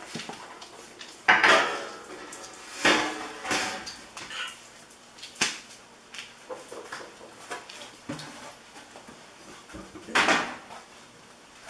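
Metal and other hard household items clattering and clanking as they are put down and sorted through on a table. There are several sharp clanks, the loudest about a second in and another near the end, with quieter handling noise between them.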